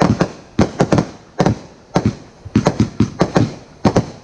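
Aerial fireworks going off in a rapid string of sharp bangs, about four a second, in uneven clusters.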